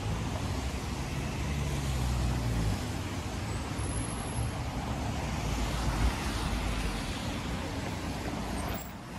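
City traffic passing close by on wet asphalt: tyres hissing on the wet road over engine rumble. A low engine hum is strongest in the first few seconds, and a brief dip comes near the end.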